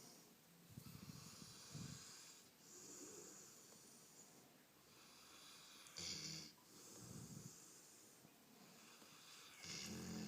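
A Rottweiler snoring faintly, a low snore on each breath every two to three seconds, the loudest about six seconds in and near the end.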